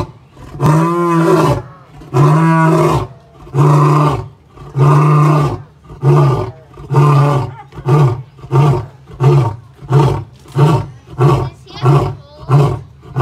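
Male African lion roaring: a few long, deep roars of about a second each, then shorter grunts that come faster, about two a second, the usual closing run of a lion's roaring bout.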